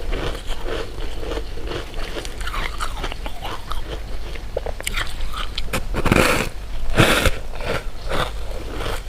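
A person chewing and biting sweets close to the microphone, with a run of short crunches and a louder crunching bite about six and again about seven seconds in.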